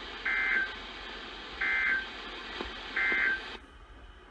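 Three short, screechy two-tone data bursts about 1.3 seconds apart over radio hiss: the Emergency Alert System (SAME) end-of-message code sent by NOAA Weather Radio to close the weekly test. The hiss cuts off sharply just after the third burst as the transmission ends.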